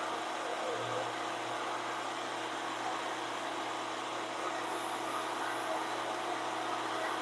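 VEVOR 13-inch benchtop thickness planer running steadily with no board in the cutterhead: a constant motor whine and whir with a few held tones.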